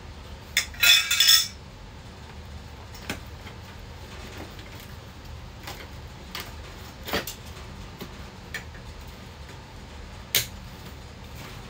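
Metal support poles of a Halloween animatronic clinking and clanking together as they are lifted from a cardboard box and set down, loudest about a second in. Scattered knocks and clicks follow as parts are handled in the box.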